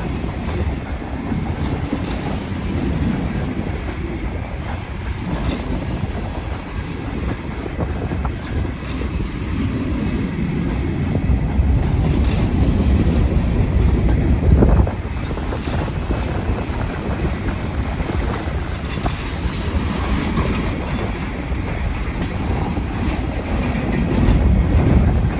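Train rolling past at close range: a steady low rumble of wheels on rail with intermittent clacks as the wheels cross rail joints, and one louder knock about halfway through.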